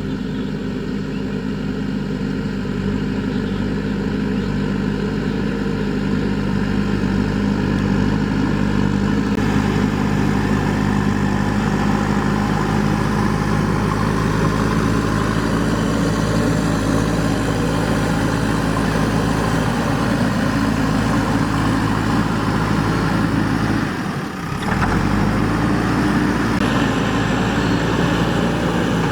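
JCB 3DX backhoe loader's diesel engine running steadily under work, with a brief drop-out near the end.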